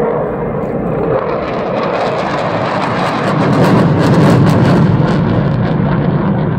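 Jet noise from a pair of Dassault Mirage 2000N fighters, each powered by a single SNECMA M53-P2 turbofan, passing overhead. The noise swells to its loudest about four seconds in, then eases slightly.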